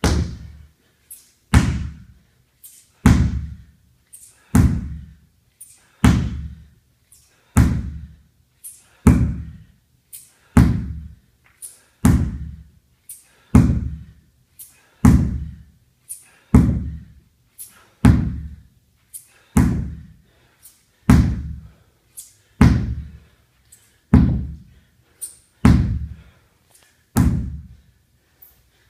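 Sledgehammer striking a large rubber tractor tire over and over, a heavy dull thud about every one and a half seconds, some twenty strikes in a steady rhythm.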